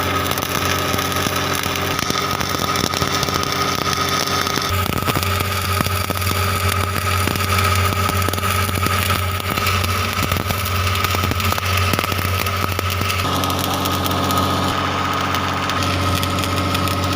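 An engine running steadily at idle, with a dense fine crackle over it; the sound's character shifts about five seconds in and again about thirteen seconds in.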